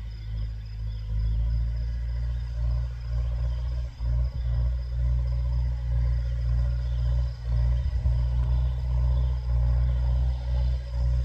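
Massey Ferguson 290 tractor's diesel engine running steadily under load while ploughing, a deep even rumble with a few brief dips.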